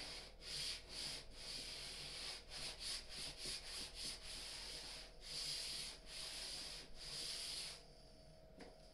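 Repeated hand rubbing strokes over the wooden enclosure panel along the freshly routed slot: quick short strokes in the middle, longer ones later, stopping about eight seconds in.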